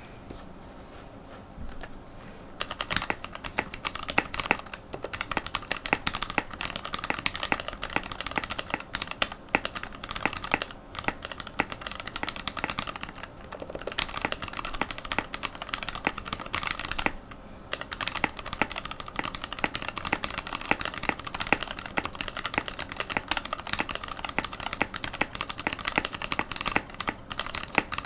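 Typing on a GK64 mechanical keyboard with TTC Orange switches on Panda stems, PBT keycaps, a carbon fibre plate and a wooden case: a fast run of key clacks that starts a couple of seconds in and pauses briefly a few times. The switches are lubed with spray-on Super Lube grease in the lower housings, which the builder finds still sound scratchy.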